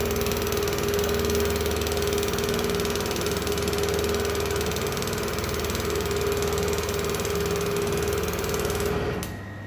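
Robot-held TiPTiG hot-wire TIG welding arc running steadily, a fast, even buzzing with a steady hum in it. It cuts off about nine seconds in as the arc stops.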